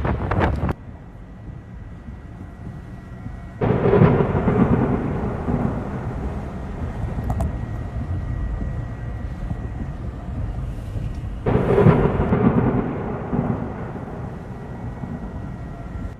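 Thunder during a storm: two loud claps, about three and a half seconds in and again near eleven and a half seconds in, each rumbling and fading slowly over a low steady rumble. A loud noisy passage at the start cuts off abruptly under a second in.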